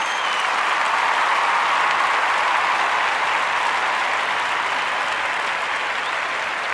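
A crowd applauding steadily, with a few faint whistles.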